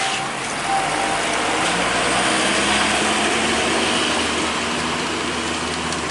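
Loaded cargo truck driving past close by, its diesel engine running steadily under the rumble of its tyres, loudest a few seconds in.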